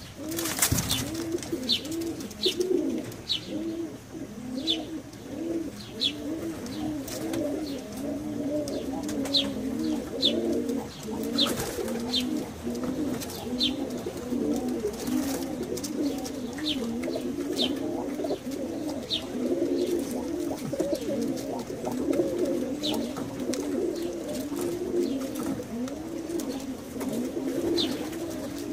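Vieshiana pigeons cooing in a continuous, overlapping warble. Short high chirps sound every second or two over the cooing.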